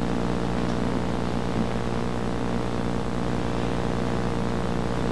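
A small electric motor running steadily, a pitched hum with a fast low pulse.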